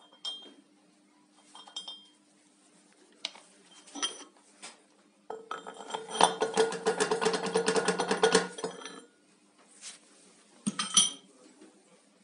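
Steel parts clinking and scraping against a cream separator part held in a lathe chuck as a bushing and then a threaded rod are worked into its bore. There are scattered single clinks, then from about five to nine seconds a fast metallic rattle with a ringing tone, then one sharp clink near the end.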